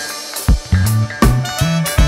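Upbeat background music with a drum-kit beat, a bass line and guitar.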